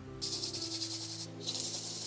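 Fingertips rubbing filling putty on a painting's canvas to level the fill and remove the excess. Two scratchy, rasping bursts about a second each, with a short break between them, over soft background music.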